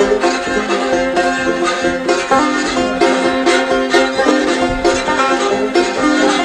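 Old-time banjo and fiddle playing an instrumental break between sung verses: quick plucked banjo notes over held fiddle notes at a steady dance rhythm, with no singing.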